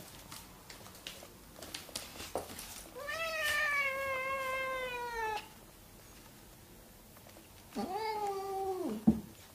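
Siamese cat meowing twice: a long, drawn-out meow that falls in pitch at its end, then a shorter one a few seconds later. A sharp knock follows right after the second meow, and a few faint taps come before the first.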